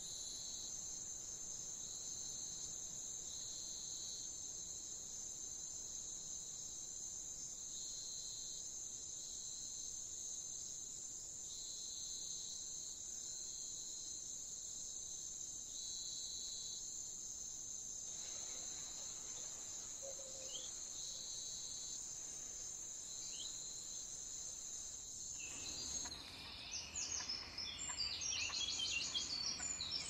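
A steady high-pitched insect trill, like crickets, with short higher notes coming back every second or two. About four seconds before the end, rapid bird chirping comes in and grows louder.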